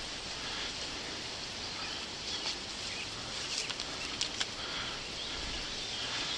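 Outdoor ambience: a steady hiss of background noise, with a few faint short clicks in the middle.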